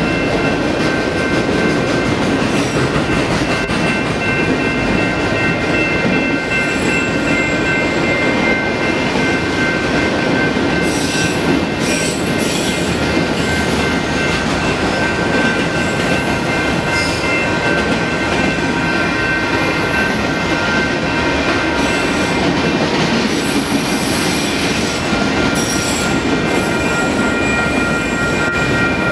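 Union Pacific auto train's railcars rolling steadily past, wheels running with a continuous high-pitched squeal of several steady tones over a constant rumble. Brief sharper screeches cut in twice, about a third of the way through and again near the end.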